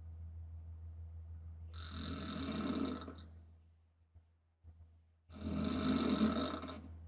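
A woman snoring with her mouth open: two long, loud snores, the first about two seconds in and the second about five seconds in, each lasting about a second and a half. A steady low hum runs underneath.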